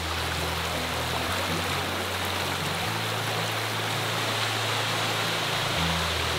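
Shallow, rocky mountain brook flowing steadily over stones, a constant rushing of water. Underneath it runs a low hum that steps between a few pitches.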